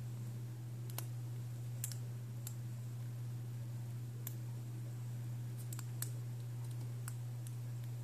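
Light, irregular metal clicks from a hook pick working the pins of a four-pin padlock held under a tension wrench, about eight over several seconds, over a steady low hum.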